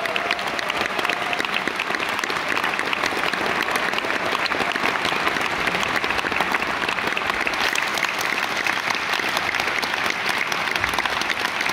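Audience applauding steadily, many hands clapping at once with no let-up.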